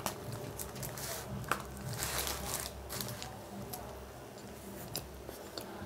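Paper food wrapper and cardboard fry carton crinkling and rustling as French fries are tipped out and handled, with a run of short crackles and a denser rustle about two seconds in, over chewing.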